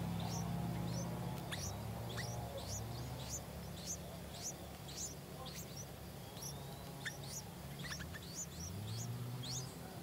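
Yellow-vented bulbul nestlings begging at the nest: a steady run of short, high, thin cheeps, two or three a second, over a low hum.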